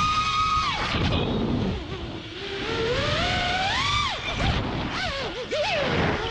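FPV quadcopter's brushless motors (Lumenier 2206 2450kv on 5-inch props) whining, the pitch rising and falling with the throttle during freestyle moves. The whine drops off about a second in, climbs again, then wavers quickly up and down near the end, over a low rumble.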